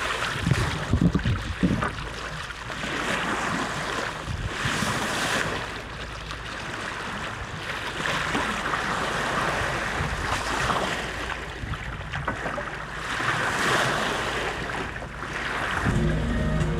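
Water rushing and splashing along a sailboat's hull as it moves under way. The wash swells and fades every few seconds, with some wind on the microphone. Music starts near the end.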